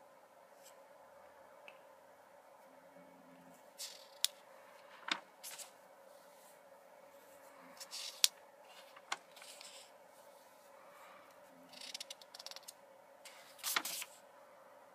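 Notebook paper rustling and crackling as pages are handled and turned, in several short bursts with sharp crinkles, over a faint steady hum.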